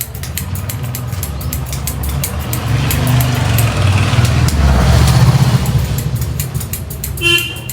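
A motor vehicle passes by: a low engine rumble grows louder to a peak about five seconds in, then fades. Rapid clicking runs alongside it, and a short pitched tone sounds near the end.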